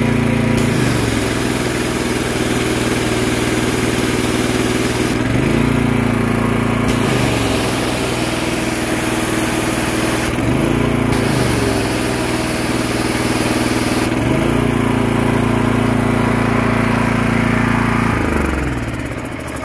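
Gas-engine pressure washer with a triplex plunger pump running under load as the spray gun trigger is squeezed and released several times: the spray hisses in spells and the engine pitch dips each time the load changes. While spraying the pump rattles from cavitation, a sign it is starved of water because the supply tap is not fully open. The engine winds down near the end.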